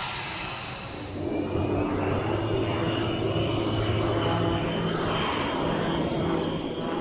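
Aircraft engine running steadily, with a held high whine over a deeper drone; it gets louder about a second in and stays level after that.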